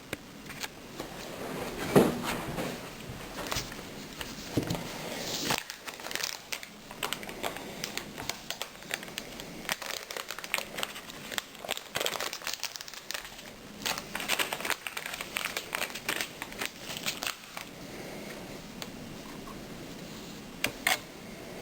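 Hands handling small parts: a dense run of small clicks, taps and crinkling, with a heavier knock about two seconds in and two sharp clicks near the end.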